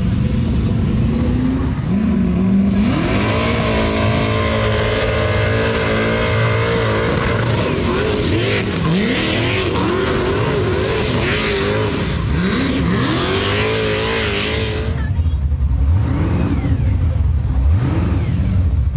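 A car's engine revs hard during a skid or burnout, with tyres squealing. The revs climb and hold high, then rise and fall again and again for several seconds before dropping back near the end.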